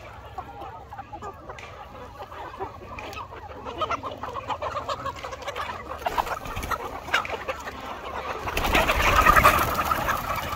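A large flock of chickens clucking as they crowd in to feed, the calls dense and overlapping and growing louder. From about eight and a half seconds, a louder flurry of wing flapping.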